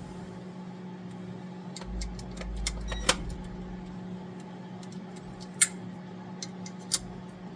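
Small metal clicks and taps of washers and nuts being fitted by hand onto the studs of a fuel-pump mounting housing, a few sharper clicks standing out, over a steady low hum.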